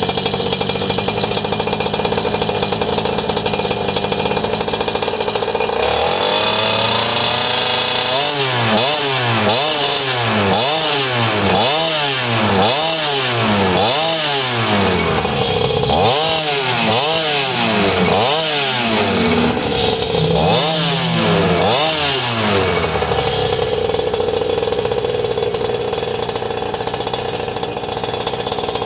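Small two-stroke GoPed engine fitted to an outboard boat motor, running at a steady idle, then revved up and down repeatedly, about once a second, for some fifteen seconds before settling back to a steady idle.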